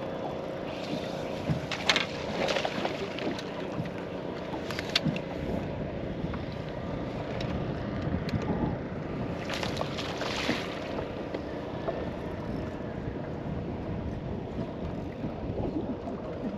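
Wind on the microphone and water lapping around a bass boat, with brief splashy bursts about two seconds in and again about ten seconds in while a hooked bass is played to the boat and netted.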